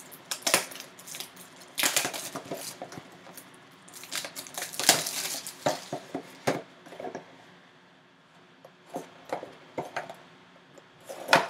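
Cardboard box of an autographed baseball being handled and cut open with a knife: irregular scratchy rustling and scraping with small knocks, easing off for a couple of seconds after the middle.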